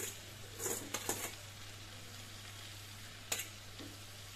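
Steady sizzle of onion-tomato masala frying in a pan as cubed raw potatoes are tipped in from a steel colander, with a few light knocks and clatters of the potatoes and colander against the pan, a cluster about a second in and one more near the end.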